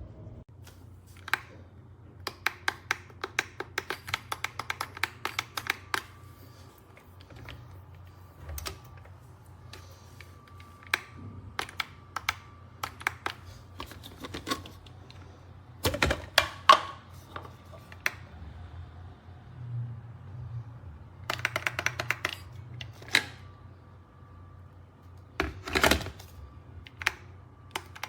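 Several runs of rapid, light clicks and taps, separated by short pauses, over a faint low hum.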